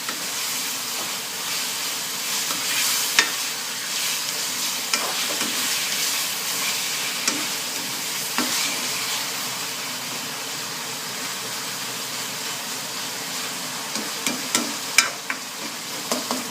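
Cubed pork frying in a hot wok with garlic, onion and tomato while being stirred: a steady sizzling hiss with scattered clicks and scrapes of the stirring utensil against the pan, coming more often near the end.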